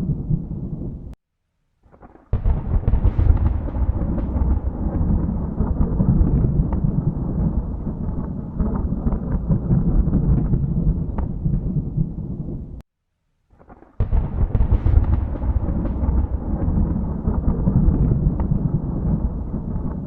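Thunder rumbling low and continuously. The rumble cuts to silence for about a second twice, about a second in and again around thirteen seconds in, and each time it starts again with a sudden loud peal that fades back into the rumble.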